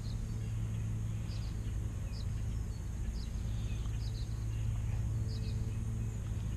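Outdoor ambience: short high bird chirps repeating every second or so over a steady low hum.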